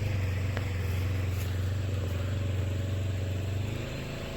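Motor vehicle engine running at a steady speed, a low drone that eases off near the end.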